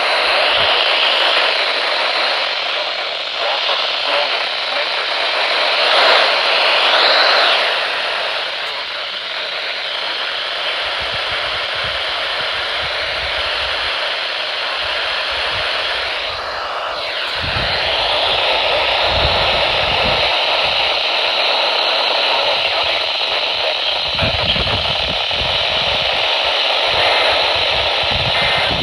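Weather radio receiver hissing with static, a steady noise cut off sharply above the upper midrange, with low rumbles coming and going in the second half.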